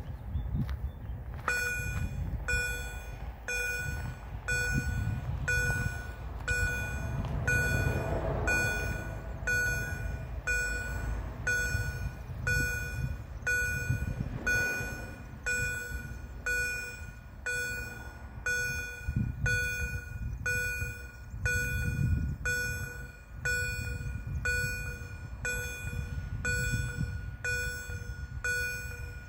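EHL-S10 electronic level-crossing warning signal starting up about a second and a half in, then sounding an even, repeated beep about once a second as the crossing closes. A low rumble runs underneath.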